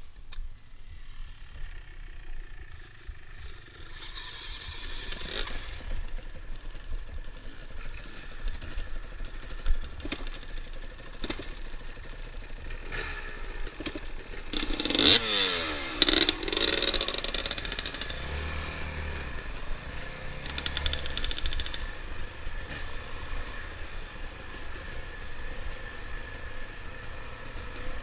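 Yamaha dirt bike's engine running under way, with clatter from the bike over rough trail. The engine revs sweep up and down sharply about fifteen seconds in and change pitch in steps a few seconds later.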